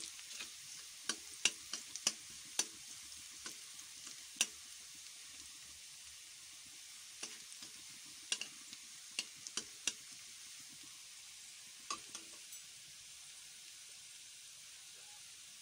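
Sliced garlic sizzling in oil in a metal kadai, a faint steady sizzle. A metal spatula stirs and taps against the pan in sharp clicks, many in the first few seconds, again a cluster around the middle, and twice more about three quarters of the way through.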